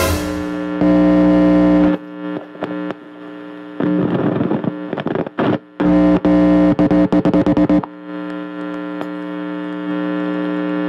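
Electronic soundtrack drone: a loud, steady buzzing hum on a few fixed pitches that keeps cutting out abruptly. Near the middle it breaks into rapid stutters several times a second.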